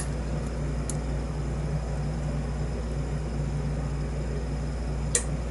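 A steady low hum, with a few faint sharp metallic ticks from a lock pick working the pins of a padlock, about a second in and again near the end.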